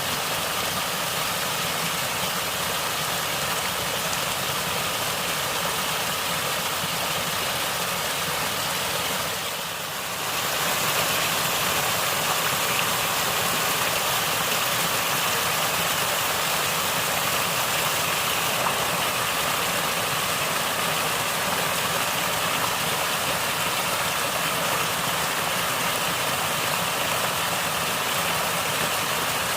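Natural water flowing and gurgling in a steady rush, briefly softer about ten seconds in and then running on a little louder.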